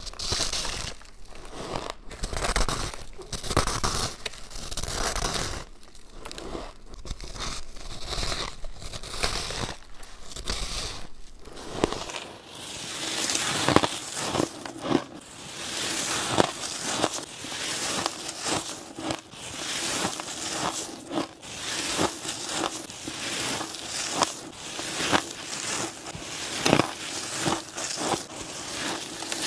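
Close-up crunching bites into chunks of compacted, refrozen powdery ice, with a crumbly crackle as the ice breaks apart. About twelve seconds in, the bites become sharper and more separate crunches.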